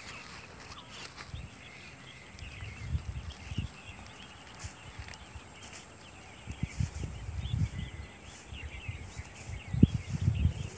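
Yellow cattle grazing close by, tearing and munching grass, heard as bursts of low rustling that come in clusters about three seconds in, around seven to eight seconds, and loudest near the end. Small birds chirp faintly throughout.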